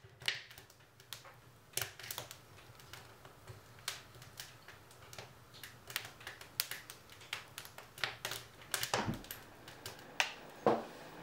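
Wood fire crackling inside a wood stove: irregular sharp snaps a few times a second, with some louder pops, the loudest near the end.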